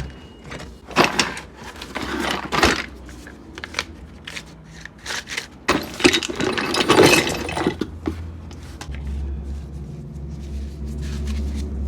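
Irregular clinks, knocks and rattles of metal tools and parts being handled, busiest a second or two in and again about halfway through. A low steady hum runs underneath near the end.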